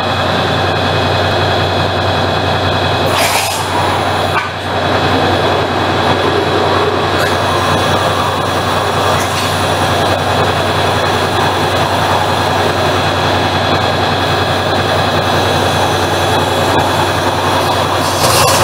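Maxiem waterjet cutter running a cut: the high-pressure pump's steady hum under the loud hiss of the cutting jet, with the hiss getting brighter near the end.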